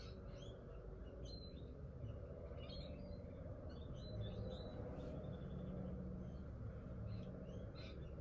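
Small birds chirping in short, scattered bursts, over a steady low background rumble.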